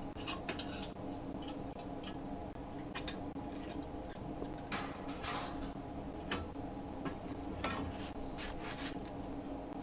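A drill boring holes in 5/8-inch steel plate, heard as a steady motor hum with scattered light ticks and clicks.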